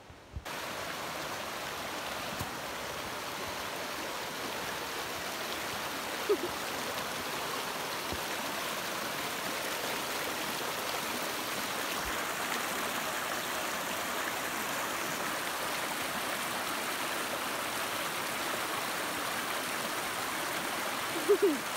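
Shallow mountain stream running over rocks and boulders: a steady, even rush of water. A brief short pitched sound rises above it about six seconds in and again just before the end.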